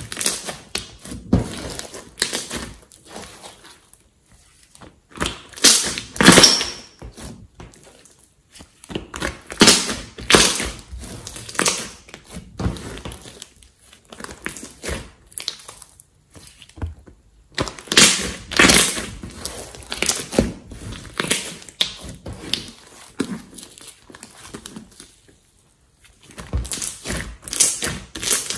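Hands squeezing, folding and stretching a large lump of green slime, making sticky squelches and clusters of sharp clicking pops in irregular bursts, with short pauses between handlings.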